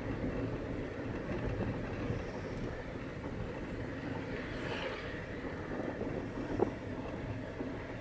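Steady road and engine rumble inside a moving car's cabin, with one brief knock about two-thirds of the way through.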